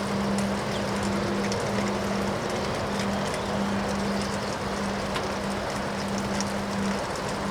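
Windstorm noise: wind rushing with scattered small ticks of rain, over a steady low hum that breaks off briefly a few times.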